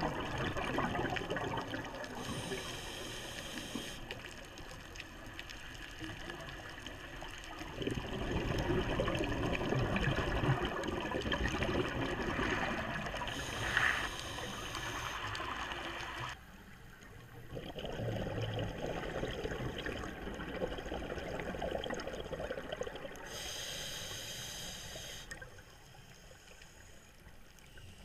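Scuba diver breathing through a regulator, heard underwater: a rushing, gurgling noise of exhaled bubbles, with a short hiss about every ten seconds, three times in all.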